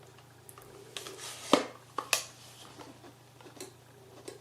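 Hard plastic clicks and knocks as a collapsible LED camping lantern's body and folding handles are handled and moved; a few sharp clicks, the loudest about a second and a half in, and fainter taps near the end.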